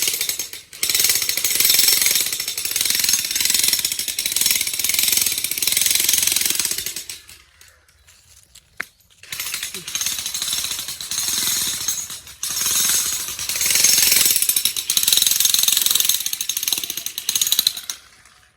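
Jackhammer hammering in rapid, continuous strokes. It stops for about two seconds a little before the middle, then starts again, with another short break a few seconds later.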